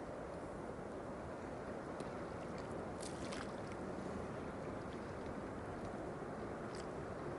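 Steady wash of sea water along a harbour wall, with a few faint ticks.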